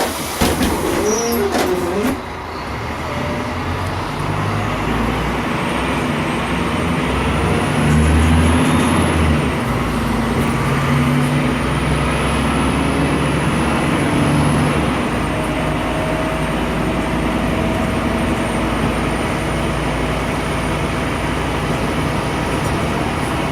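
Scania K310 city bus's diesel engine pulling away and accelerating, its pitch climbing and dropping twice as the ZF automatic gearbox shifts up, about ten and fifteen seconds in, then running steadily at cruise. A faint high whine rises and falls along with it.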